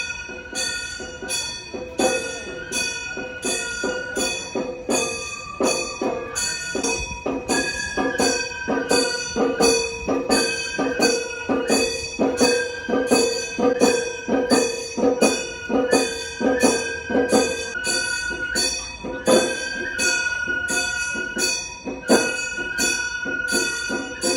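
Music: a high, held melody that steps between notes over regular percussion strokes about twice a second, with ringing metallic overtones.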